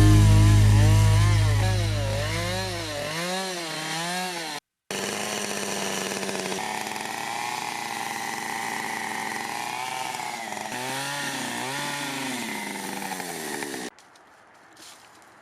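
Chainsaw running and cutting wood, its engine pitch rising and falling again and again with the throttle. It has a brief break about four and a half seconds in and stops suddenly near the end. A low steady hum fades out over the first three seconds.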